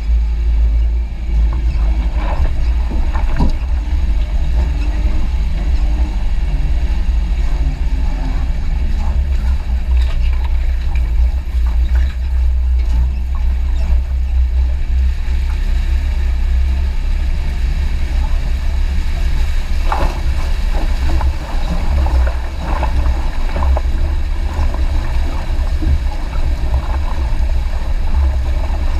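Vehicle engine running with a steady low rumble while fording a river, with occasional knocks around 2 to 3 seconds in and about 20 seconds in.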